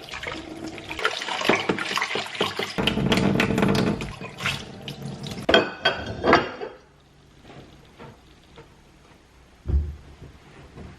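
Water running from a tap into a sink, with dishes clinking, stopping about seven seconds in. A single dull thump near the end.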